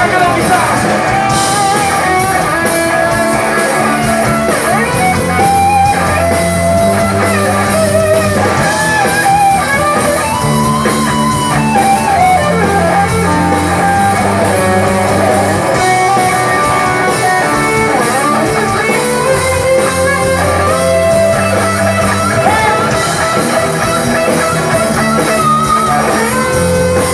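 Live rock band playing an instrumental passage: a lead guitar line with bending notes over a steady bass line.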